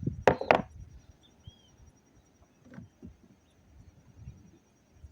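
Two sharp knocks about half a second in, then a few fainter knocks and taps, like gear being handled.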